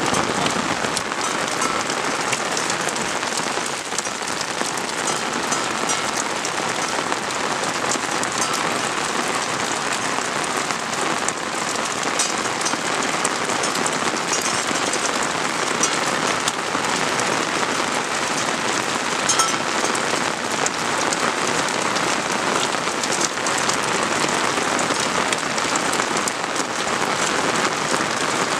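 Steady rain falling, with many individual drops ticking on nearby surfaces.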